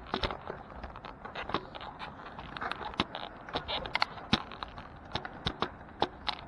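Handling noise of a camera being set up: irregular sharp clicks, taps and knocks as it is fiddled with on its mount, over a steady background hiss.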